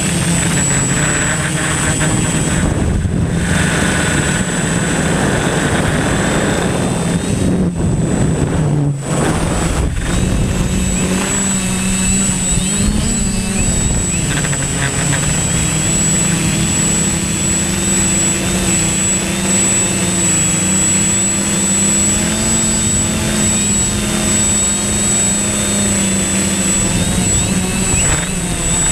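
Multirotor drone's propellers and motors running in flight: a steady, loud buzzing hum whose pitch wavers slightly as the motor speeds change, with a thin high whine.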